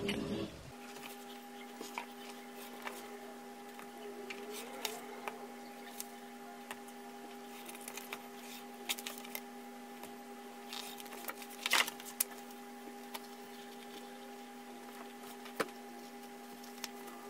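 Quiet handling sounds of leather and hands on a cutting mat: scattered soft taps, clicks and rustles, with a few sharper knocks around the middle, over a steady electrical hum.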